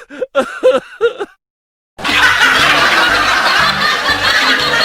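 Snickering laugh sound effect of short, quick syllables, then after a pause a louder, dense clip of laughter over music with a low bass line, lasting about three seconds.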